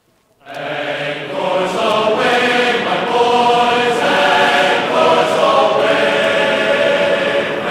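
Choral music: a choir of sustained sung voices that fades in after a brief silence at the start.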